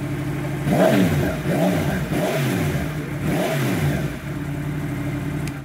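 Yamaha MT-10's crossplane inline-four, breathing through an SC-Project slip-on muffler on the stock header, idling in neutral, then blipped four times, each rev rising and dropping back, before settling back to idle.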